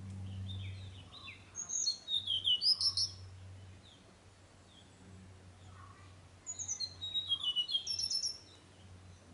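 Tickell's blue flycatcher singing: two phrases of rapid, high, quick-changing notes, each about two seconds long, the first starting about a second and a half in and the second about six and a half seconds in.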